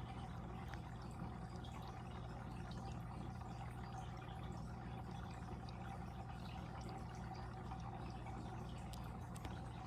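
Fish-tank water flowing and trickling steadily, with small drips and bubbles, over a steady low hum.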